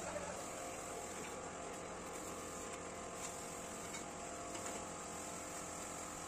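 Steady mechanical hum with a constant high hiss, the background noise of a building site, with a few faint ticks.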